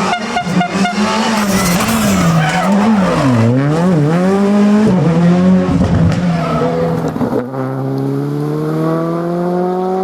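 Rally car engine working hard through a stage, the revs rising and dropping sharply several times as the driver comes on and off the throttle, with a few sharp cracks near the start. About three quarters of the way in the engine settles into a steady, slowly rising note as the car accelerates away.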